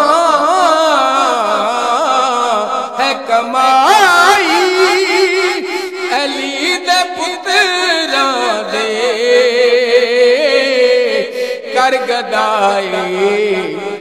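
A man singing a Punjabi qaseeda solo into a handheld microphone, holding long drawn-out notes with a wavering, ornamented pitch and no distinct words.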